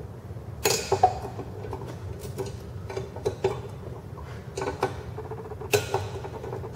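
Ratchet and Torx socket clicking and clinking on steel, with a few sharper metallic knocks, as Torx head bolts are backed out of the WM80 engine's aluminium crankcase.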